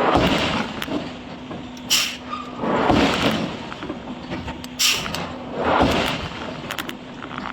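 Forging machinery working in a repeating cycle about every three seconds: a short, sharp air hiss, then a longer heavy whoosh, over a steady low hum.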